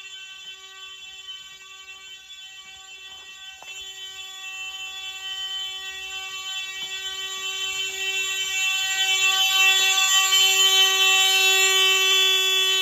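Fire alarm sounder giving one steady, unbroken buzzing tone, growing louder through the middle and loudest near the end.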